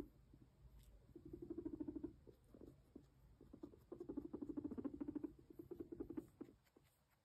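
A long-haired Sheltie (Silkie) guinea pig purring while being stroked: a low, rapidly pulsing buzz in three short bouts, the first about a second in and two more close together a few seconds later.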